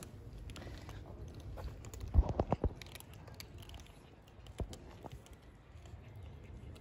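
Cats and kittens crunching dry kibble, with scattered small clicks. About two seconds in comes a brief cluster of louder knocks, the loudest thing heard.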